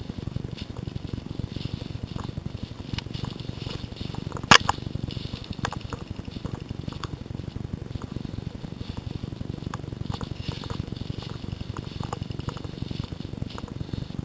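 Footsteps crunching through dry leaf litter and snapping twigs, with scattered small cracks over a steady low rumble on the microphone, and one sharp crack about four and a half seconds in.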